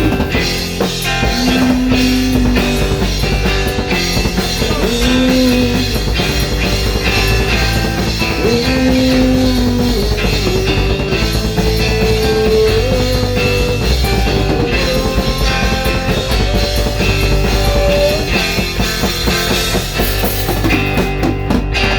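Instrumental break of a rock song: drums and guitars play under a lead melody of long held notes that step upward.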